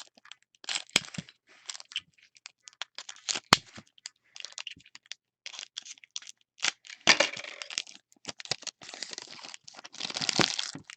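Cardboard trading-card box being torn open and foil-wrapped card packs handled, a run of irregular tearing, crackling and crinkling.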